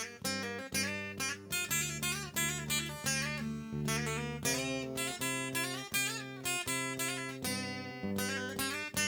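Acoustic guitar playing chords in a steady rhythm, about two strokes a second, with the chords changing every second or two and no singing.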